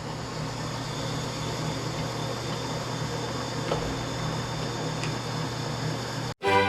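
A shop machine tool's electric motor running steadily, a constant low hum with an even hiss above it, cutting off abruptly near the end.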